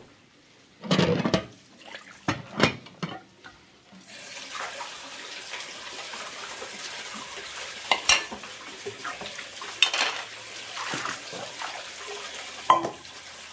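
Water running and splashing as a steady hiss from about four seconds in, with knocks and clatters of metal cookware being set down and handled, a loud one about a second in and more near the middle and end.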